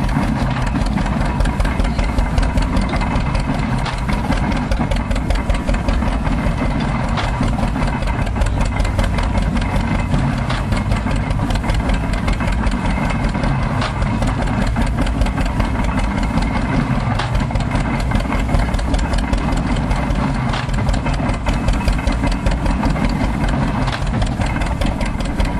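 Tractor engine running steadily with a fast, even beat, belt-driving an antique stationary wire-tie baler as it packs straw.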